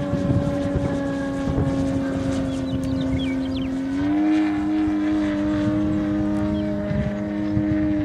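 Large-scale RC aerobatic plane's DLE 222 gasoline two-stroke engine on canister mufflers, running steadily overhead. Its pitch steps up about halfway through and falls away right at the end.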